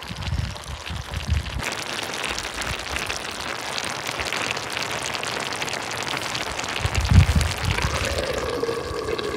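Cauliflower tagine in a clay pot sizzling on the heat, a steady dense crackle. Low rumbles come at the start and again about seven seconds in.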